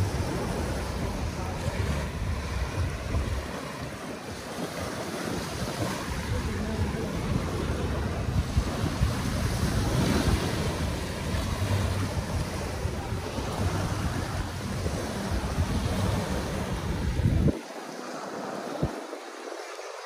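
Small surf washing onto a sandy shore, with wind buffeting the microphone in a gusty low rumble that cuts out suddenly near the end.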